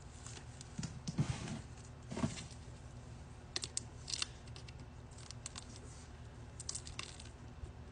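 Hands opening a sealed vinyl record: soft scrapes and rustles of the plastic shrink wrap being cut and peeled, with scattered sharp little ticks and clicks.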